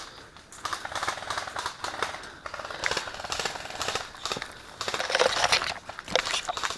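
Footsteps crunching and crackling through dry leaves and brush, in uneven bursts; the loudest stretch comes about five seconds in.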